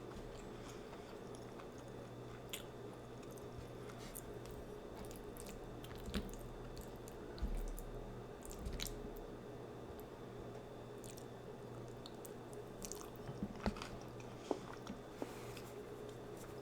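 A person chewing and biting food, with wet mouth sounds and scattered sharp clicks, over a faint steady hum.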